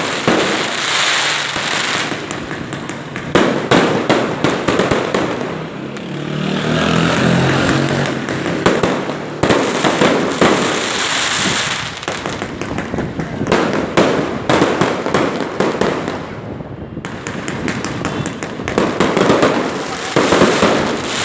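Fireworks going off in quick succession: many sharp bangs and dense crackling, with a brief lull about three-quarters of the way through before the bangs pick up again.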